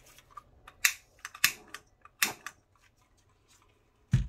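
Several sharp clicks and taps of small objects being handled on a work table, then a louder dull knock near the end.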